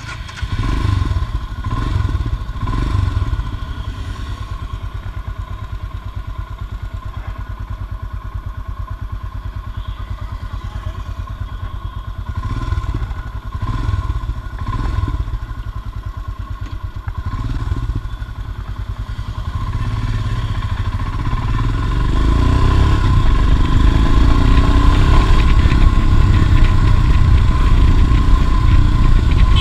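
Royal Enfield Himalayan's single-cylinder engine running as the motorcycle is ridden, its firing pulses steady throughout. It gets louder about two-thirds of the way through.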